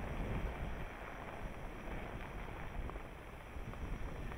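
Wind buffeting the microphone over the low rumble of a Ram heavy-duty pickup truck crawling through snow.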